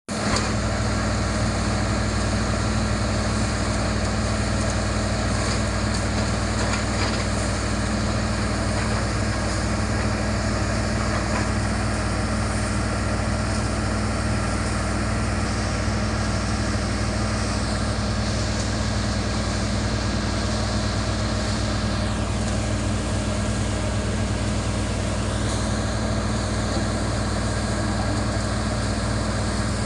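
Heavy machinery's engine running steadily at an even speed, with a constant deep hum.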